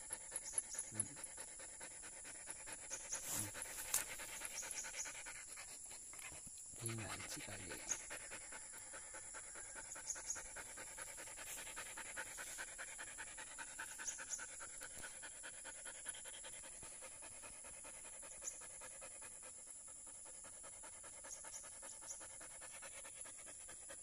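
Belgian Malinois panting fast and steadily, worn out from a steep uphill hike.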